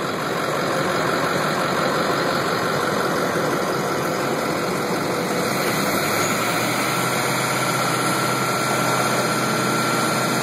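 A vehicle engine idling steadily, with a low hum joining in about six seconds in.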